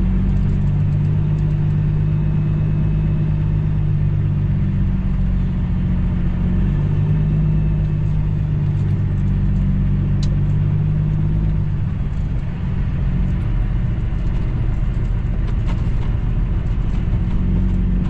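Cummins ISX diesel engine of a Kenworth W900L truck running at low speed as the truck creeps along, heard from inside the cab as a steady low drone whose pitch shifts slightly a few times.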